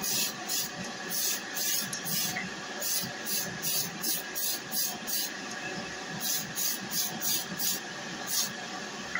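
Aerosol spray paint can hissing in many short bursts, about two or three a second, over the steady hum of a spray booth's extraction fan. It cuts off suddenly at the end.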